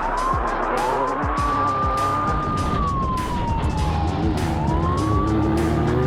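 Off-road race vehicle's engine revving hard and holding high, easing off about three seconds in and winding back up near the end, with short clatters and knocks from the rough course.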